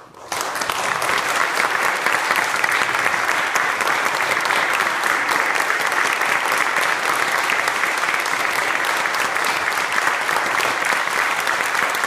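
Audience applause that breaks out suddenly just after the start and keeps up steadily.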